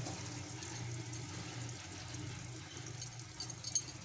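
Quiet kitchen background: a low steady hum and faint hiss, with a few light clicks near the end.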